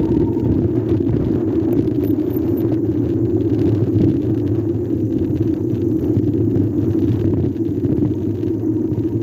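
Steady low rumble of riding a Pexmor electric bike along a paved path behind a John Deere UTV: road and wind noise of the moving ride, even throughout with no sudden sounds.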